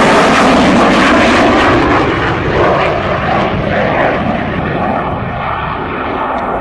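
Saab JAS 39 Gripen fighter jet flying past, its jet engine loud and rushing, easing off from about two seconds in.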